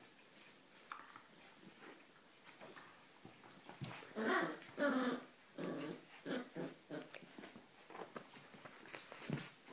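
Border collie play-growling while mouthing puppies: quiet scuffling at first, then two loud growls about four seconds in, followed by a string of shorter growls that die away.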